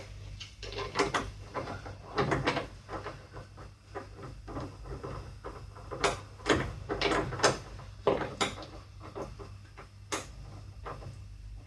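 Irregular metal clicks and knocks as the oil drain plug, with its washer, is threaded back in and tightened with a hex key.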